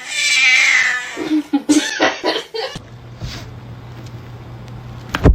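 A cat meowing loudly: one long drawn-out meow, then a few shorter calls. After that comes a low steady hum, and a sharp knock near the end.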